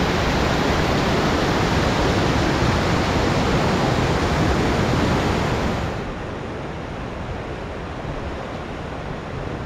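Snowmelt creek rushing over boulders and out from under a snow bridge, a loud steady rush of whitewater. About six seconds in it cuts off suddenly to a quieter, duller rushing noise.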